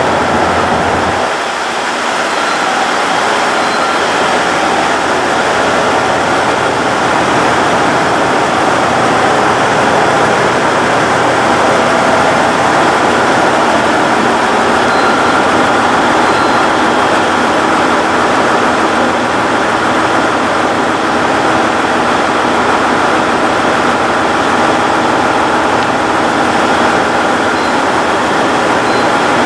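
Diesel engines of the KiYa 95 track and overhead-wire measuring train running steadily, a dense mechanical din with faint steady whining tones through it.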